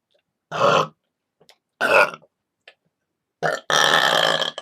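A girl burping deliberately: two short burps in the first two seconds, then a longer, drawn-out burp near the end.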